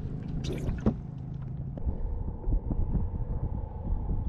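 Fish being handled in a boat: irregular knocks and thumps, with a sharp click about a second in, over a low steady rumble.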